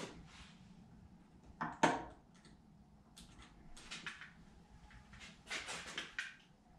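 Short sharp clicks and knocks of small metal hardware being handled as a bolt and spacer are fitted through a steering damper's mounting bracket. The loudest knock comes about two seconds in, and a quick run of clicks follows near the end.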